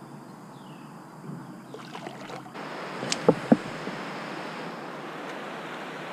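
Steady rush of river current flowing around a kayak, coming in abruptly about two and a half seconds in, with two sharp knocks shortly after.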